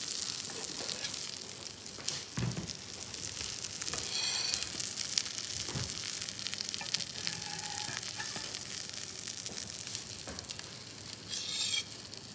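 Breadcrumbed sardines sizzling steadily in butter in a frying pan, with a few light knocks of a utensil against the pan.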